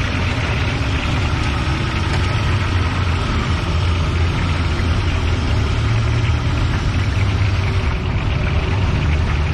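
Battered fritters deep-frying in a wok of hot oil, a steady sizzle over a continuous low, engine-like rumble.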